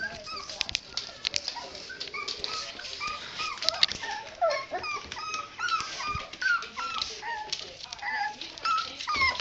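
Several puppies whimpering and yipping in many short, overlapping high-pitched cries, with scattered clicks.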